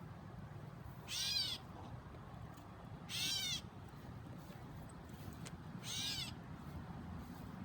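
A fledgling bird calling: three high, arched calls of about half a second each, spaced two to three seconds apart.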